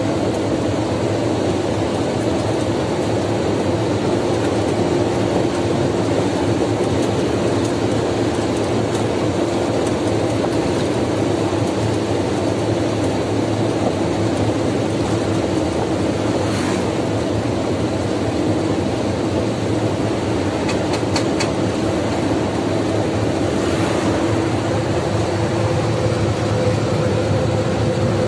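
Lorry's diesel engine and tyre noise heard from inside the cab while cruising on a highway: a steady drone with a constant hum, and a few light rattles about three-quarters of the way through.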